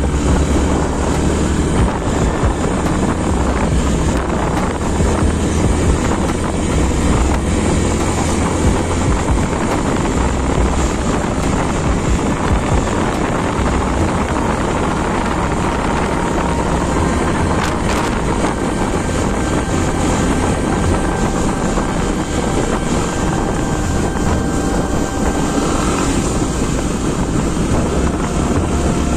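Motorcycle riding along at steady speed, its engine running under a constant rush of wind buffeting the microphone.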